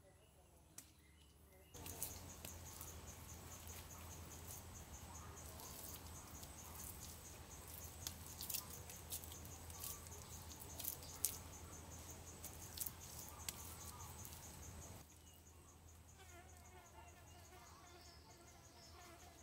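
Faint forest ambience of insects chirring in a rapid, steady high pulse, with scattered sharp clicks, the loudest near the middle. The chirring drops out abruptly about three-quarters of the way through, leaving faint wavering chirps.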